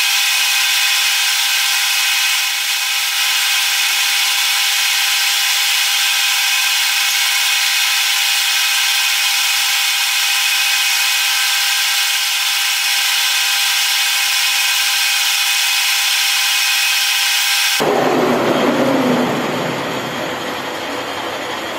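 Manual lathe turning a brass bar: the cutting tool on the spinning workpiece gives a loud, steady, high-pitched whine made of several steady tones. Near the end the whine stops and a broader, lower machine noise takes over.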